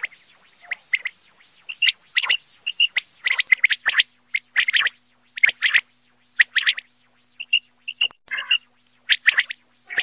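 Common quail calling: short, sharp notes in quick groups of two or three, repeated about every second.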